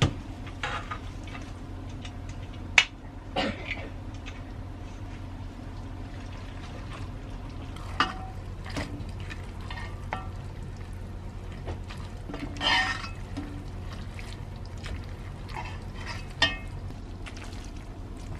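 Spaghetti tipped from a stainless steel colander into a cast-iron pot and tossed with vegetables using a utensil: scattered knocks and scrapes of utensil and colander against the pot, the sharpest about three seconds in. A steady low hum runs underneath.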